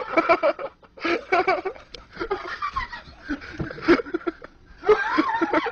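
Laughing in quick, choppy bursts, giggling and snickering, with short breaks about a second in and again near the end.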